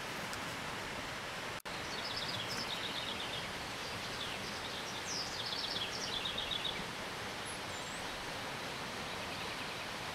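Western kingbird giving rapid, stuttering chatter calls in several short bursts, from about two seconds in until about seven seconds in, over a steady background hiss.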